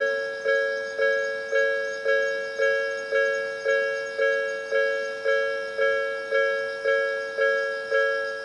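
Japanese level-crossing warning bell ringing, an electronic two-tone ding repeating about twice a second, each strike fading before the next: the crossing signalling an approaching train.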